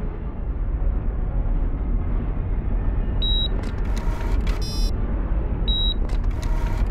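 Steady low rumble of a submarine's interior. Over it, the sub's camera system runs the same sequence twice: a short high beep, a burst of static, then a rapid electronic buzzing chatter as the photo image loads.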